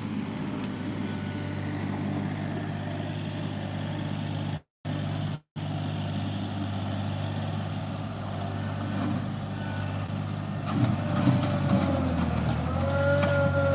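John Deere 3025E compact tractor's three-cylinder diesel engine running steadily, the sound cutting out twice briefly about five seconds in. Near the end the engine note shifts, with a few knocks and a higher whine that rises and falls over it.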